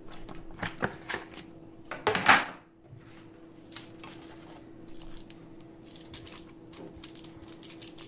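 Scattered clicks and clacks of a disassembled mechanical keyboard's plastic case, switch plate and circuit board being handled, with one louder, longer scraping noise about two seconds in.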